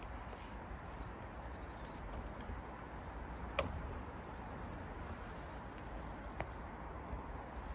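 Small birds chirping faintly in short high calls scattered through, over a steady low outdoor background, with two sharp clicks, the louder about three and a half seconds in.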